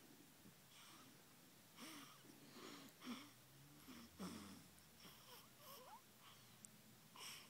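A sleeping newborn's faint, irregular breathing, with little grunts and a few rising squeaks on the breaths.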